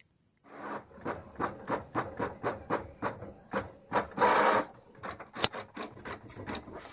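Canon PIXMA MX725 inkjet printer printing a page: the print head shuttles back and forth in short, regular mechanical strokes, about four a second. About four seconds in comes a longer whirr, and after it the strokes come faster.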